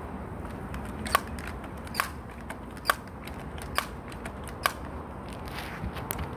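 Air rifle firing five sharp shots in quick succession, about a second apart, with a fainter click near the end.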